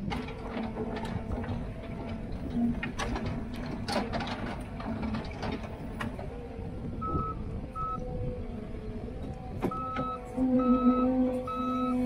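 John Deere 317G skid steer's diesel engine running steadily under work, with clanks and knocks from the machine and bucket as it cuts into dirt during the first six seconds. From about seven seconds in its reversing alarm beeps over and over as it backs up, and the engine gets louder near the end.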